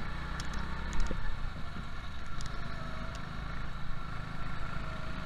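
Go-kart engines running at racing speed on an onboard recording, the note rising and falling through the corners, with a single knock about a second in.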